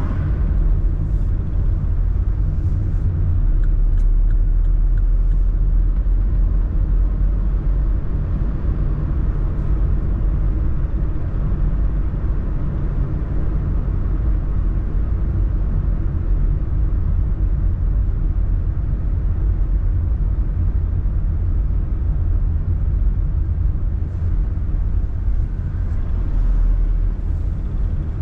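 Car driving along at a steady pace: a continuous low rumble of engine and road noise, with no change in speed.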